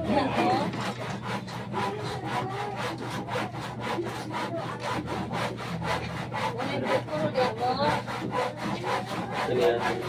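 Hand saw cutting wood in steady, even strokes, about four or five scrapes a second.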